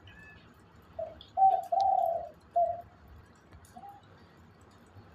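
A dove cooing: a series of short, low coos with one longer coo in the middle, then a pause.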